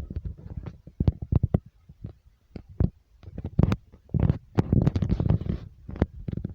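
Irregular knocking and rattling over a low rumble, in quick uneven clusters, denser and noisier from about four seconds in.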